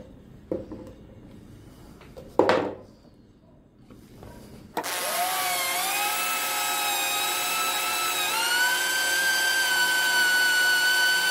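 A couple of handling knocks, the loudest about two and a half seconds in. Then, about halfway through, a corded electric drill starts up and runs with a steady whine. Its pitch rises as the motor spins up and again a few seconds later while it bores slowly into an oiled piece of a steel C-clamp.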